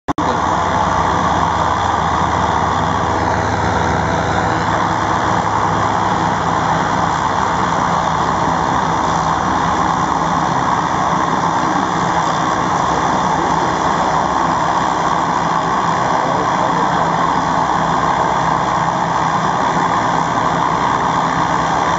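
North American OV-10 Bronco's twin Garrett T76 turboprop engines running on the ground with the propellers turning: a steady, loud drone that holds even throughout.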